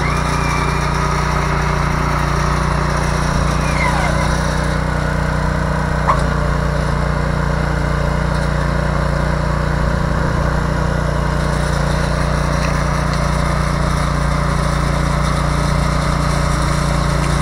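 Earthquake Victory rear-tine tiller's small gas engine running steadily under load as the tines dig into grass sod. A single sharp click about six seconds in.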